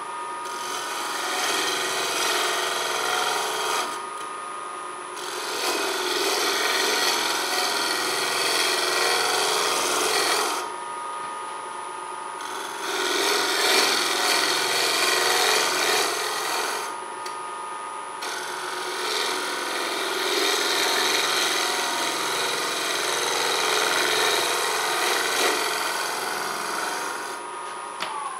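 A bowl gouge cuts a very dry elm bowl spinning on a wood lathe, a loud scraping hiss of shavings in four long passes with short pauses between them. Under it the lathe motor whines steadily, falling in pitch as the lathe spins down at the very end.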